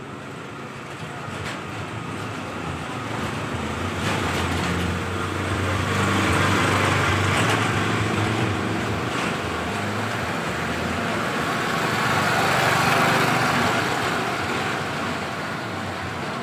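Engines of small motorised utility trucks running as they drive past close by, the sound building from about four seconds in and loudest around seven and again around thirteen seconds in.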